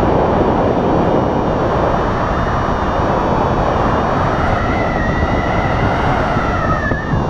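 Steady rush of wind over the camera microphone in flight under a paraglider. A faint wavering tone joins it about four and a half seconds in.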